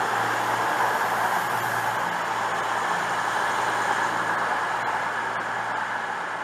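CrossCountry diesel train running past along the platform: a steady low engine hum under a rushing wheel and air noise, easing a little as the last coach goes by.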